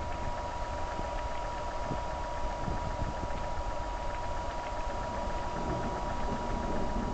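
Steady background hiss with a constant thin whine and a low rumble underneath; no thunder is heard.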